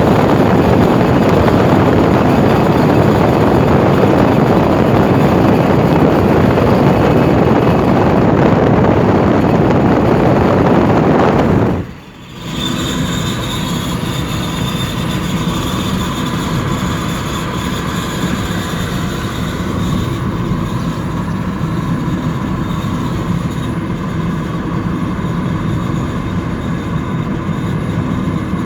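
Skoda/VW Group car being driven, with road and wind noise. After a sudden change about twelve seconds in, a steady high-pitched screech comes from a wheel over quieter running noise: the fault common to this generation of VW Group cars.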